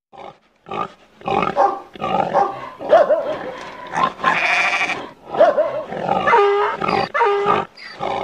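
Barnyard animal sound effects: a busy string of grunts and calls with short gaps between them.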